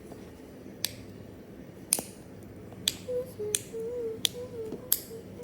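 Soft, sharp clicks of a dimple fidget toy's bubbles being pushed in and popping back, six clicks about a second apart.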